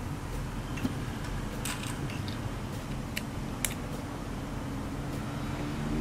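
A few light clicks and scrapes of an HDMI plug being handled and pushed into a small USB-C hub on a tablet, over a steady low hum.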